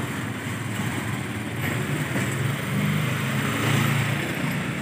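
Steady low mechanical hum with no distinct event.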